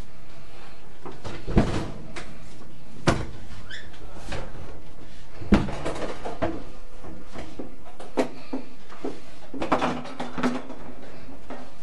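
Wooden cupboard doors being handled, opened and shut: a few separate knocks and bumps, the sharpest about one and a half, three and five and a half seconds in, then a short cluster of knocks and rattles near the end.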